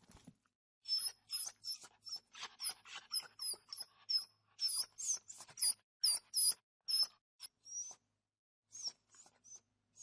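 A rapid string of short, high-pitched animal squeaks and yelps, several a second, each a quick rising or falling glide. They pause briefly near the end, then a few fainter squeaks follow.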